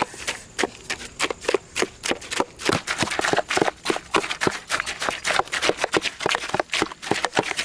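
A rapid, irregular run of sharp knocks or taps, several a second and uneven in strength, stopping abruptly at the end.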